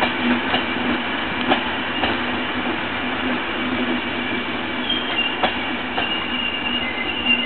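Couchette coaches of a passenger night train rolling past, their wheels clicking over rail joints with a steady rumble. A thin, high squeal from the wheels comes in about five seconds in and holds.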